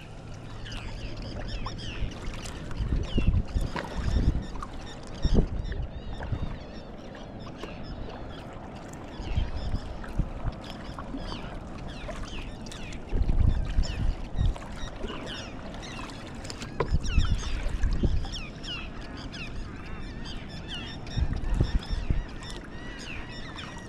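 A flock of waterbirds calling constantly in many short calls, with kayak paddle strokes and water splashing in irregular surges every few seconds.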